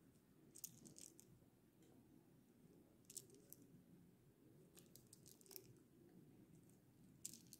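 Near silence with a few faint, short clicks of coral beads being handled and threaded onto a line.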